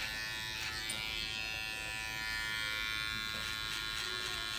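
Electric hair clippers buzzing steadily while trimming a beard.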